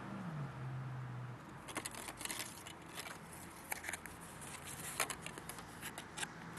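Card and paper hang tags being handled and turned over close to the microphone: a run of short crackles and rustles starting a little under two seconds in. Before that, a low steady hum dips in pitch and stops about a second and a half in.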